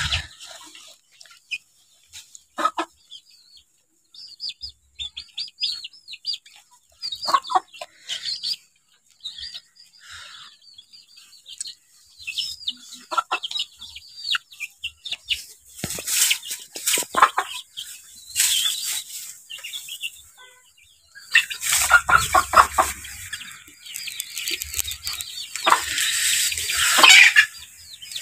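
Chickens clucking, with many short high chirps through the first half. In the second half, louder bursts of rustling as the goats pull at dry palm leaves.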